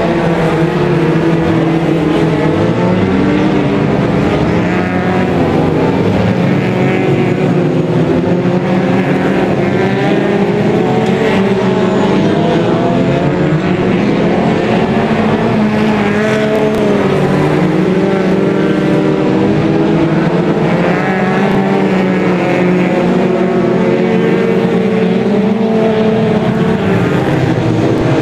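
Several winged stock cars racing around a shale oval: a loud, continuous mix of engine notes from more than one car, each rising and falling as the cars accelerate out of the bends and lift for the turns.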